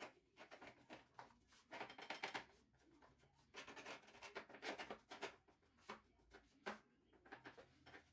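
Bristle paintbrush scrubbing model car body panels in a foamy liquid bath, working off the old red paint. The brushing comes in bursts of quick, scratchy strokes with short pauses between.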